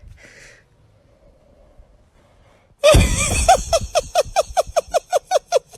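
A sudden loud burst about three seconds in, then a fast run of short, pitched gasping calls, about five a second, each falling slightly in pitch.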